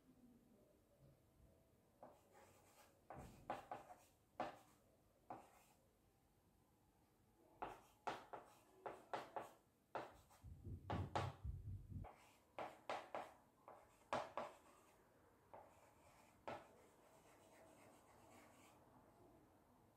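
Chalk writing on a small blackboard: clusters of short scratching strokes and taps with pauses between, and a brief low bump about halfway.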